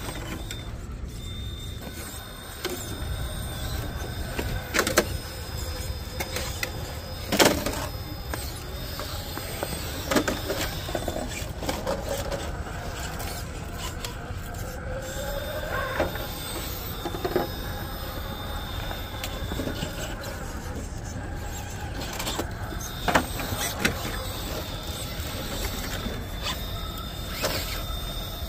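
Electric RC rock crawler's motor and gear drivetrain whining, the pitch rising and falling as it works up the rocks, with several sharp knocks of the truck against the rock.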